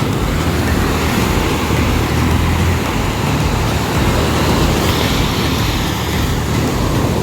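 Ocean surf washing onto a beach: a steady wash of noise with a strong low rumble underneath.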